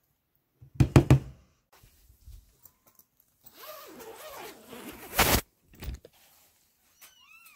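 A metal spoon knocking against a bowl a few times about a second in, then a zipper on a mesh pop-up pet playpen being pulled open with a rustle, ending in a sharp thunk.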